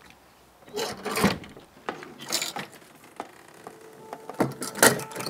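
A metal T-handle lock on a wooden garage door being worked and the door unlatched: a few separate rasping scrapes and clicks of metal and wood.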